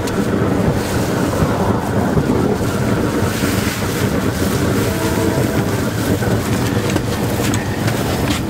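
Propane roofing torch burning steadily, a continuous low rush of flame used to heat torch-down membrane.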